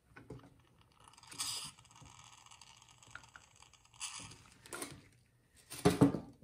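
Scattered light scrapes and clicks of metal engine parts being handled inside an open aluminium crankcase as the connecting rod is pushed aside to free the crankshaft, with a louder clatter near the end.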